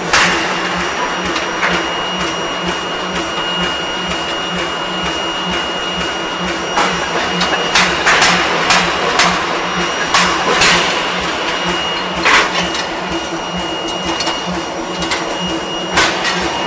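Hot-forming rolling machine running with a steady hum and a constant high whine, while a red-hot blank is rolled. Scattered sharp metallic knocks come through, in a cluster about eight to eleven seconds in.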